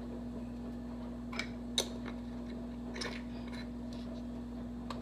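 A few light clicks and taps of a small glass spice jar being handled as pinches of dried herb are taken out, over a steady low hum.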